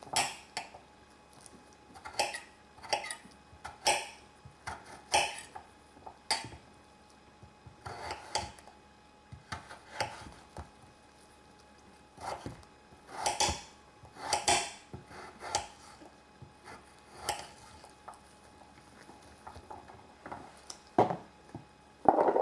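A utensil knocking and scraping against a cooking pot in irregular strokes, roughly one a second, a few of them longer scrapes.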